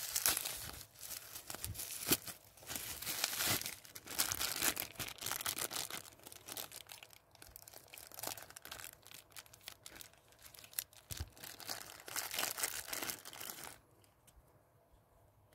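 Clear plastic packaging crinkling and rustling as it is handled and torn open, with scissors cutting through the plastic bag partway through. The crinkling stops suddenly about fourteen seconds in.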